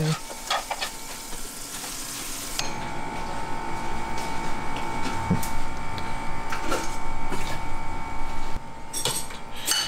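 Chicken and rice sizzling in a frying pan, stirred with metal tongs. About two and a half seconds in, the sizzle stops abruptly and a steady hum with a held tone takes over, with a few clinks of dishes and a metal bowl as food is tipped into a serving bowl, more clinks near the end.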